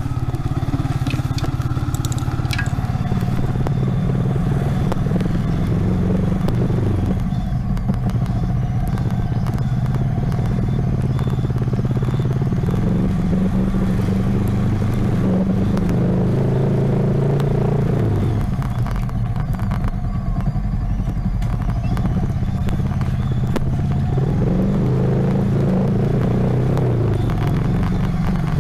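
A 2007 Yamaha Vixion's 150 cc single-cylinder engine running while the bike is ridden slowly at low revs. Its pitch rises and falls a few times with the throttle.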